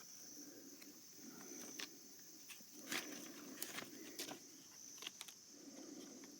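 Faint scattered clicks and soft rustles, a few seconds apart, over a steady high hiss.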